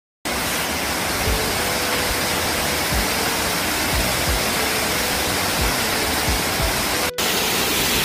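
Steady rushing of a tall waterfall of about 50 metres plunging onto rocks and into its pool. The sound drops out for an instant about seven seconds in.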